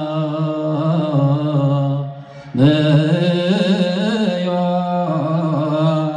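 A man singing Ethiopian Orthodox Yaredic chant (zema) solo, in long held notes with wavering melismatic ornaments. He breathes briefly about two seconds in, then sings a second long phrase.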